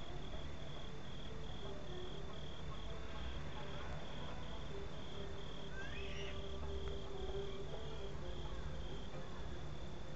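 A cricket chirping in short, evenly spaced pulses on one high note, over a low steady rumble.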